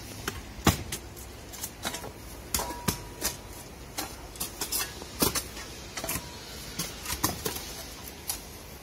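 Hoes striking soil and tree roots while digging around a tree: irregular chopping knocks and scrapes, a few of them sharp, with the hardest strikes just under a second in and about five seconds in.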